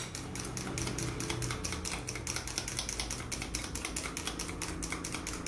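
Egg yolks and olive oil being beaten by hand in a small plastic cup: a rapid, even clicking, about nine strokes a second, as the utensil strikes the cup to work the mixture into a homemade egg cream for mayonnaise.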